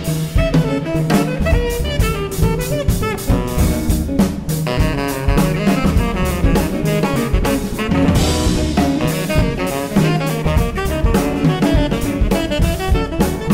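Jazz septet recording: drum kit driving under saxophone and brass lines, played at a steady, busy pace.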